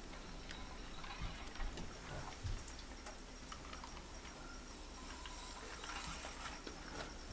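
Small scattered clicks and taps, with a few soft low thumps about a second or two in, from a bowhunter handling his compound bow and shifting in his chair inside a wooden box blind. A faint steady high tone sits underneath.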